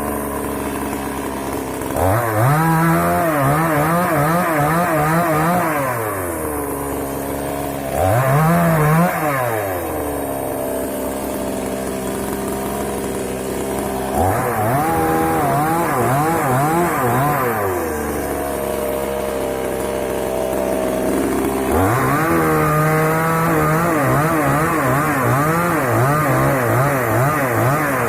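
Moto Yama two-stroke chainsaw cutting dry wood: the engine is throttled up four times in long bursts, its speed wavering under load, and drops back to a lower run in between.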